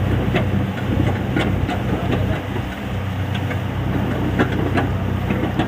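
Borewell drilling rig's engine running steadily, with irregular sharp clicks and knocks over it.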